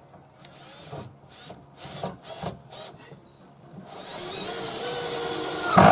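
Cordless drill-driver driving a screw into a timber frame: a few short bursts of the motor, then a longer run from about four seconds in whose whine steps up in pitch, cut off sharply at the end.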